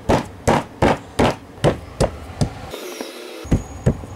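A hand patting and pressing a crushed-biscuit and butter crust into a cake pan, a steady run of sharp pats about two or three a second. The pats break off briefly around three seconds in, then two more follow.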